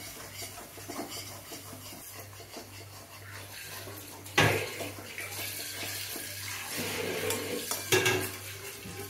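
A slotted metal spatula scrapes and stirs gongura leaves in a metal kadai as they are sautéed slowly on low heat without water. There are two louder clanks of the spatula against the pan, one about halfway through and one near the end, over a steady low hum.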